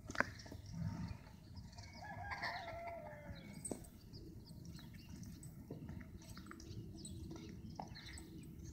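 A rooster crows once about two seconds in: a drawn-out call that sinks in pitch toward its end. A sharp click comes right at the start, and a low steady rumble runs underneath.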